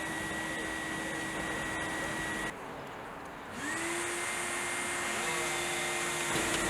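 A small electric motor running with a steady hum and whine; it switches off about two and a half seconds in, then spins back up with a rising pitch about a second later and runs on steadily.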